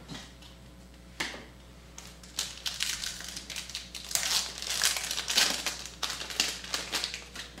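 Foil trading-card pack wrapper being crinkled and pulled open by hand: a quick click about a second in, then a run of crackling rustles from about two and a half seconds in until near the end.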